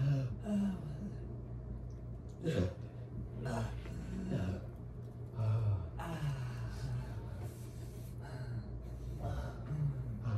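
Young men's gasps and groaning breaths, short and breathy, each a fraction of a second long and coming every second or two. A steady low hum runs underneath.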